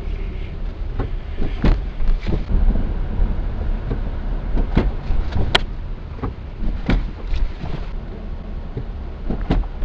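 Lada Vesta SW Cross driving, heard from inside the cabin as a steady low road rumble. About seven sharp knocks come at irregular moments: the suspension knock the owner hears going over speed bumps.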